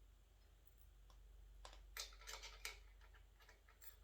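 Faint clicks and light taps of small hardware being handled, a washer and bolt being set into the centre of the plucker's plate, in a short cluster about halfway through and once more near the end, over a low room hum.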